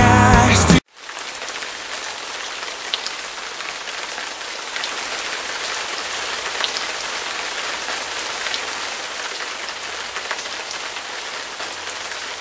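Music cuts off under a second in, giving way to a steady hiss with a few faint scattered ticks.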